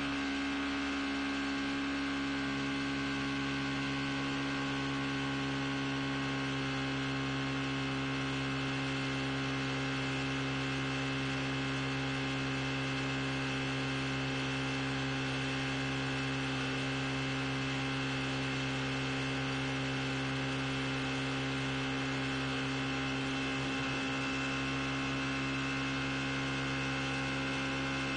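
Outboard motor running at steady high speed, driving the boat: a constant hum that holds one pitch, over a hiss of spray from the wake.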